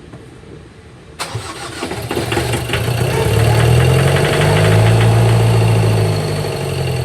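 Ford Ranger 2.2 diesel engine being cranked over by its starter, a crank-no-start fault. The cranking cuts in suddenly about a second in and grows louder over the next few seconds, easing slightly near the end.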